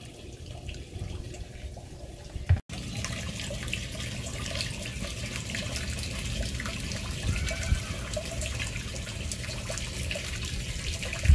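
Water from a hydroponic system's 2-inch PVC return-drain pipe pouring back into the blue barrel reservoir, a steady trickling splash, because the pump is running. The sound drops out briefly about two and a half seconds in and comes back a little louder.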